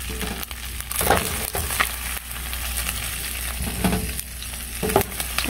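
Chicken feet adobo sizzling as it fries in a pan, with a utensil scraping and clicking against the pan as it is stirred and scooped out. The sauce has been cooked down so the feet toast in the oil.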